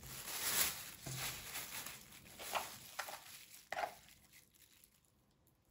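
Thin plastic bag over a tray of dough balls crinkling and rustling in irregular bursts as a hand reaches inside; the rustling dies away about four seconds in.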